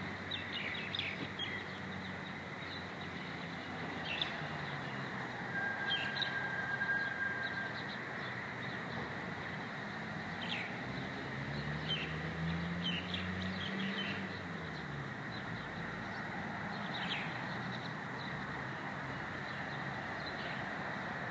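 Small birds chirping now and then, short high notes a few seconds apart, over steady outdoor background noise. About halfway through, a low hum rises and then falls in pitch.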